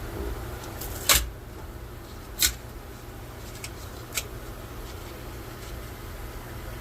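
A 3D-printed plastic Apisto cave being popped off the printer's build plate: a sharp crack about a second in, a second one about a second later, then two faint clicks, over a steady low hum.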